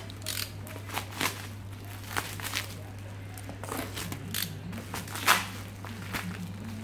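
Plastic bubble wrap crinkling and crackling in irregular bursts as it is slit with a box cutter and pulled open by hand, with one sharper crackle about five seconds in. A steady low hum runs underneath.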